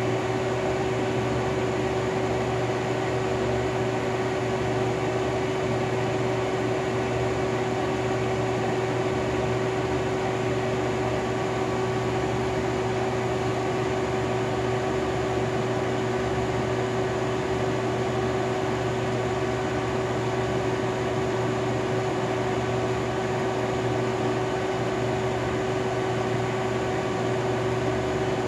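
Robinair AC recovery-and-recharge machine's vacuum pump running with a steady hum, pulling a vacuum on a car's air-conditioning system during its timed vacuum cycle.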